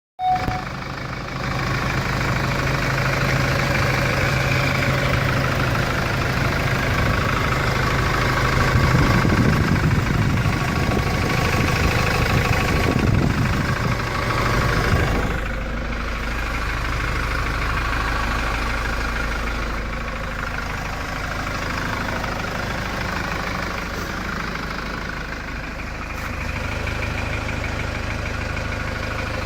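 Hyundai D4CB 2.5-litre four-cylinder common-rail turbodiesel running warm at idle, revved up and back down between about 8 and 15 seconds in, then idling again. The owner is unsure whether it makes an extraneous noise.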